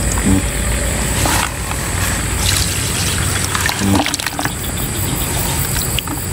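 Water sloshing and splashing in a bucket of live snakeskin gouramis, with a few sharp knocks as the bucket and mesh net are handled, over a steady low engine hum.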